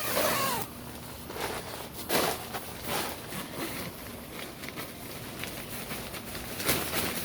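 Nylon tent fabric rustling and scraping in short, scattered bursts as the tent door is handled for zipping, with a louder scrape about two seconds in and another near the end.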